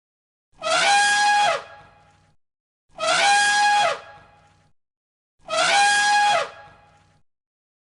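An animal call played three times, each about a second long and identical, a held pitched call with a rough, noisy start.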